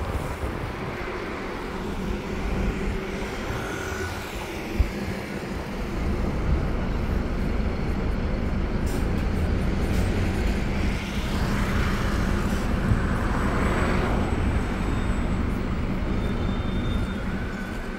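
Steady engine and road rumble of a sightseeing bus in city traffic, with a low hum throughout and a swell of traffic noise between about eleven and fourteen seconds in.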